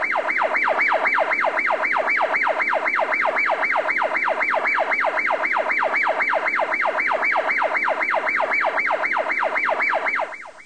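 Electronic siren in a fast yelp: a tone falling sharply in pitch over and over, about four times a second, fading out near the end.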